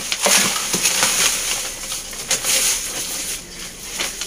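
Sun-dried garden soil pouring out of a black plastic grow bag into a plastic bucket: a steady rushing hiss for about three seconds that thins out near the end.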